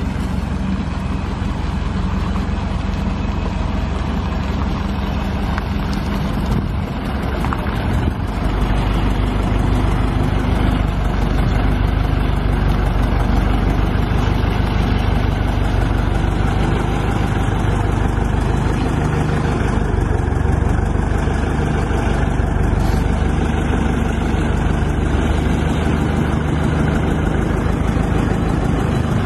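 Engine of a wheeled mobile crane running steadily as it lifts and carries a motorboat in its slings; it grows louder about eight seconds in and then holds.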